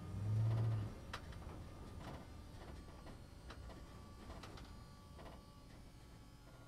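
Inside a London double-decker bus: a low engine hum that stops about a second in, then scattered clicks and light rattles about once a second over a faint steady hum.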